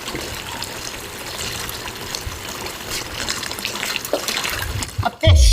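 Steady rushing of running water, like a tap left on, with small clicks through it. A sudden loud low thump about five seconds in, followed by a low rumble.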